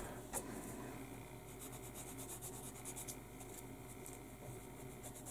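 Faint, quick scratchy strokes of a small hand tool rubbing a plastic 1/72 model aircraft wheel, about eight strokes a second for roughly a second and a half in the middle, after a couple of light clicks at the start.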